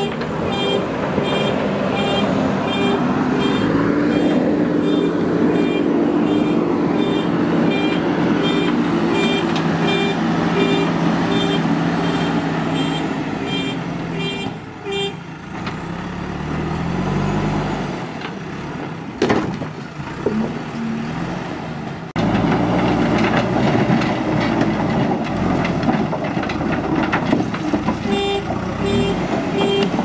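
JCB 3DX backhoe loader's diesel engine running and revving as it works, with its reversing alarm beeping about twice a second. The beeping drops out about halfway through and comes back near the end.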